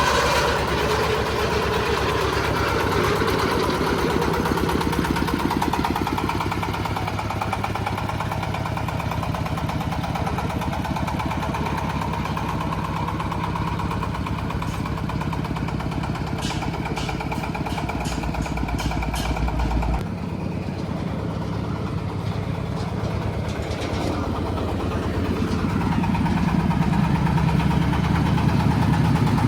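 Corn sheller machine on a test run, its Jiangfa stationary engine running steadily. A short run of sharp clicks comes about two-thirds of the way through, and the engine grows louder near the end.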